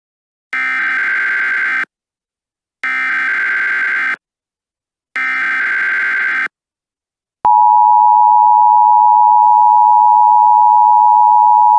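Emergency Alert System header tones: three bursts of screechy digital data tones, each just over a second long, followed about seven and a half seconds in by the steady two-tone EAS attention signal, which marks the start of a new alert.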